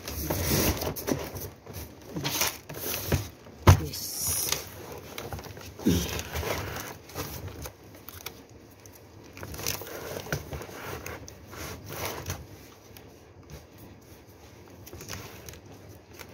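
Cardboard and plastic-wrapped plastic bottles being handled: irregular crinkling, rustling and scraping as cardboard is pressed and shifted around the bottle bundle, with one sharp knock about four seconds in.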